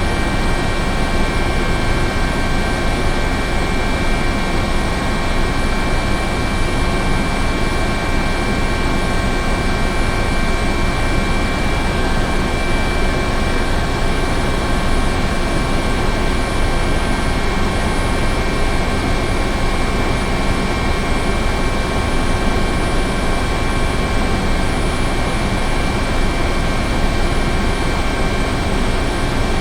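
Helicopter running steadily: a dense low rotor and engine rumble under several constant high whining tones, holding the same loudness throughout with no approach or fade.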